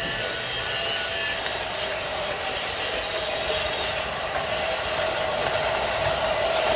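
Battery-powered toy Christmas train running on plastic track, its motor and wheels giving a steady whine that grows louder as the locomotive comes closer.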